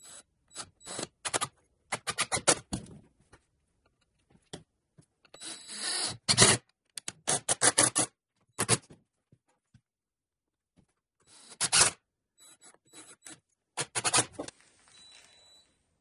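Cordless impact driver driving screws into stacked pressure-treated wood blocks, run in short bursts with pauses between groups.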